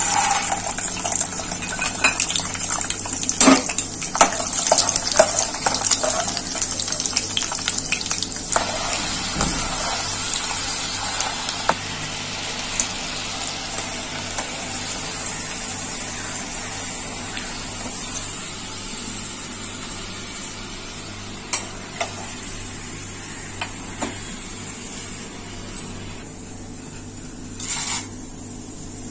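Peanuts poured into hot oil in a kadai and sizzling as they fry, with a metal slotted spoon clinking against the pan; the sizzle is loudest and crackly at first and settles to a steadier, quieter hiss. Near the end a second pour, of roasted chana dal, sets off a fresh short sizzle.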